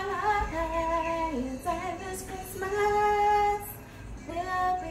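Background music: a song with a woman singing long, held notes that slide between pitches.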